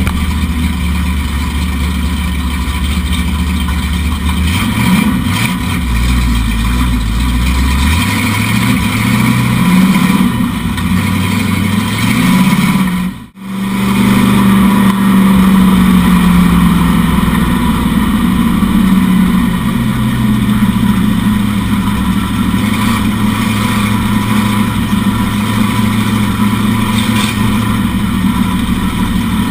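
A factory stock dirt-track race car's engine, heard from inside the cockpit. Its pitch climbs through the first half as it accelerates, then it runs steadily at speed. The sound cuts out briefly about 13 seconds in.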